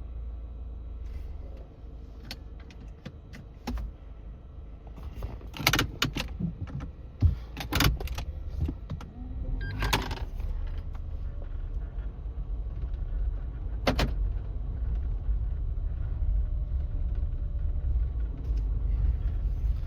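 Low, steady rumble of a car being driven, with scattered sharp clicks and knocks, several together about six to eight seconds in and single ones around ten and fourteen seconds.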